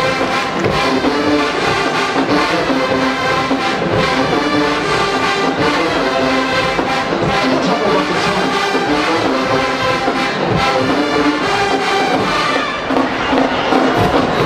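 College marching band playing, with the brass section carrying the tune in loud, sustained chords.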